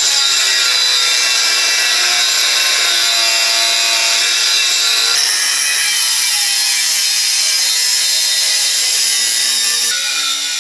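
Angle grinder with a cut-off disc cutting through the end of a steel scrub-bar tube to shorten it, a loud, steady grinding whine that shifts in tone about halfway through and again near the end.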